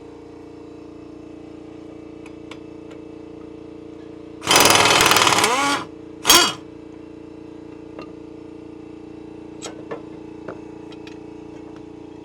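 Pneumatic impact wrench hammering on a riding mower's blade nut to loosen it: one long burst of about a second and a half, then a short second burst, over a steady low hum.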